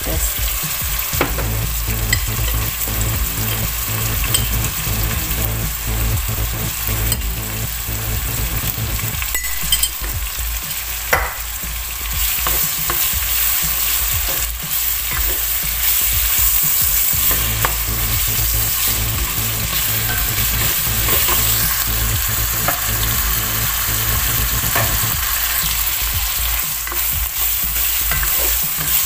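Beef cubes and browned onion sizzling in oil in a nonstick pan, stirred with a spatula that scrapes and clicks against the pan now and then.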